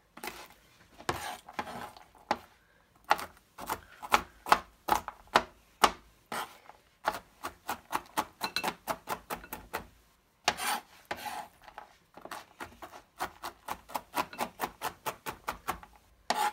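Knife chopping walnuts on a plastic cutting board: the blade knocks repeatedly on the board in runs of about three strokes a second, broken by short pauses, crushing the nuts into small pieces.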